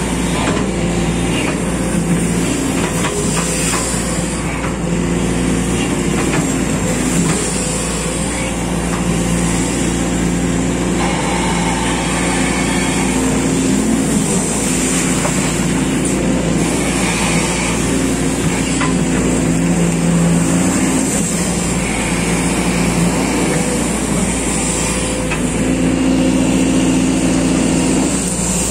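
SANY SY215C hydraulic excavator's diesel engine running steadily under working load, its tone shifting as the hydraulics move the boom and bucket to dig and lift wet mud.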